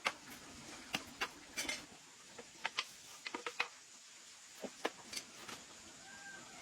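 A series of irregular light clicks and knocks, about a dozen, unevenly spaced.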